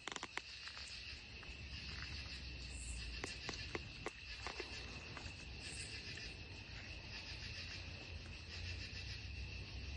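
A steady chorus of night insects, crickets among them: a constant high trilling, with a short higher-pitched call repeating about every three seconds. A few faint clicks come near the start and again around the middle.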